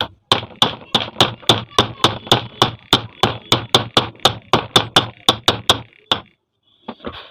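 Hammer tapping a new ball bearing into place on a ceiling fan, about twenty quick, even blows at roughly three a second, each with a brief ringing tone after it. The blows stop about six seconds in, with the bearing seated.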